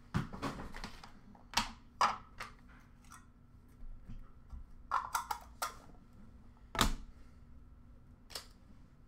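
Hockey trading card packs and cards being handled: scattered clicks, taps and short rustles of card stock and wrappers, with the loudest tap about seven seconds in.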